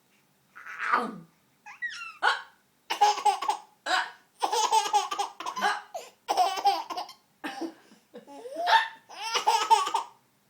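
Baby laughing in a run of short bursts with brief pauses between them, broken by a sharp hiccup about two seconds in.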